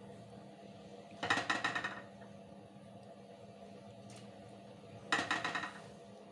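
A metal spoon clattering against the rim of a pressure cooker pot in two short, rapid rattling bursts, about a second in and again near the end, as ghee is knocked off the spoon into the pot.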